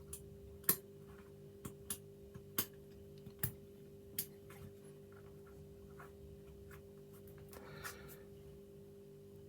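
Sharp clicks and taps of small sash-lock parts being handled and fitted together during reassembly, about eight in the first four seconds or so, then a brief rustle a little before the end.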